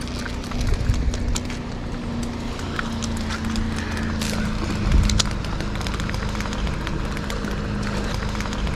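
Spinning reel being cranked to bring in a hooked fish that is pulling hard, a steady whir with scattered clicks over a low rumble.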